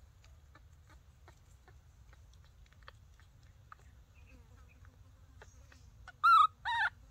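Two short, loud, wavering animal calls about half a second apart near the end, the second starting higher and falling, over faint scattered clicks.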